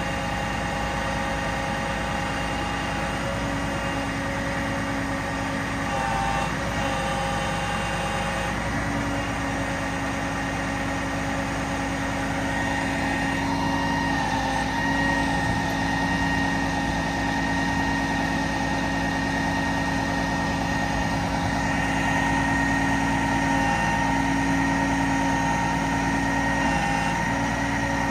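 Diesel engine of a Freightliner M2 crane truck (Cat 12.5-litre) running steadily at idle to drive the crane's hydraulics. A steady hydraulic whine changes pitch and strength as the crane boom and tire manipulator are operated.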